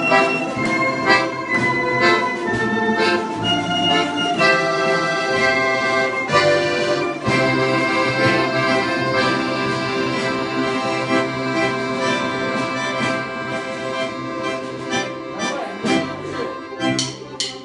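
Russian folk-instrument orchestra playing a tune together, with sustained accordion chords over plucked balalaikas.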